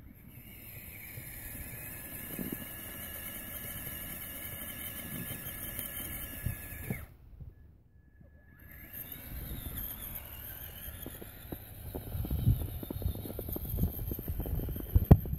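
Traxxas Summit RC truck's electric motor and geared drivetrain whining under throttle as it churns through deep snow. The whine cuts out for about a second and a half near the middle, then resumes with low thumps from the wheels and suspension in the snow.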